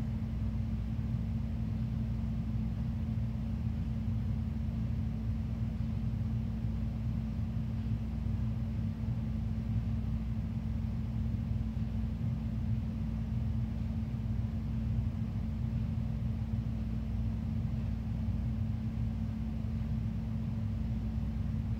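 Steady low room hum with a constant droning tone and a low rumble beneath it, unchanging throughout, with no other sounds.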